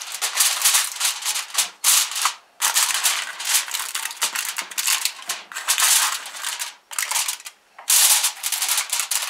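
Aluminium foil crinkling and crackling as hands press and crimp it around the rim of a baking pan, in irregular bursts with a few short pauses.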